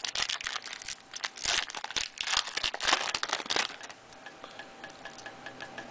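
Crinkling of a trading-card pack's foil wrapper being handled and opened, in rustling bursts for the first three seconds or so, then quieter.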